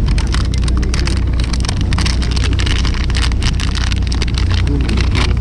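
A fishing boat's engine rumbles steadily under wind noise, with a dense patter of small ticks and clicks over it.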